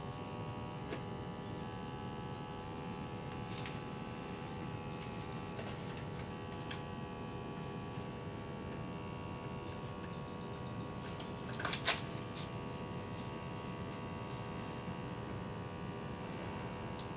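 Automatic blood-pressure monitor's cuff pump running a measurement with a steady hum. A short rustle of clicks comes about twelve seconds in.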